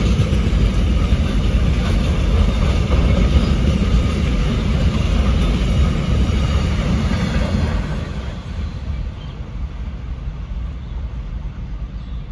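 Container freight train wagons rolling past at speed: a steady, loud rumble of steel wheels on rail. About eight seconds in, as the tail of the train goes by, the noise drops and fades as the train recedes.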